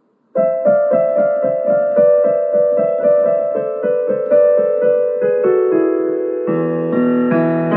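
Gentle piano music: notes struck evenly about three times a second, each ringing on, with lower bass notes joining at about six and a half seconds.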